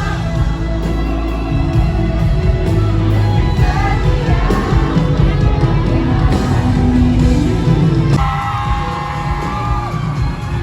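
Pop music with a singing voice over a steady bass line.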